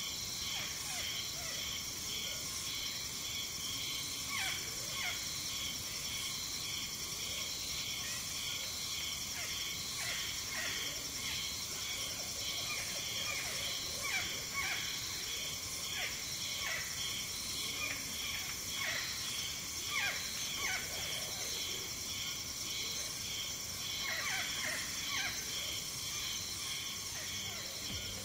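Tropical forest ambience: a steady high-pitched insect chorus with a second insect trill pulsing about twice a second. Over it come short calls that fall in pitch, several in small runs.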